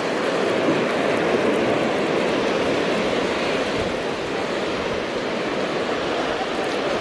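Ocean surf washing up the beach: a steady rush of waves.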